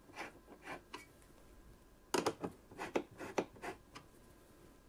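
Screwdriver turning the spring-loaded mounting screws of a CPU tower cooler: scattered light metallic clicks and scrapes, a few at first and a closer run between about two and four seconds in, as the screws are taken down a few turns at a time on alternate sides to seat the cooler evenly.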